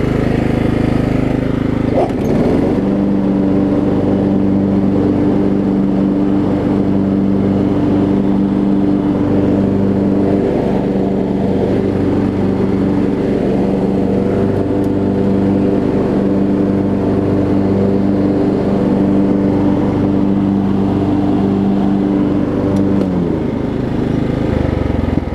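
Kohler Command engine on a Craftsman riding mower running steadily at high throttle. Near the end it is throttled back and the pitch falls as it idles down, which is the normal response.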